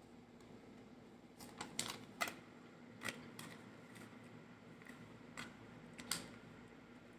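Eating sounds: about half a dozen short, crisp clicks and crackles from food and utensils being handled, several close together between one and two and a half seconds in, then a few single ones, over a low steady hum.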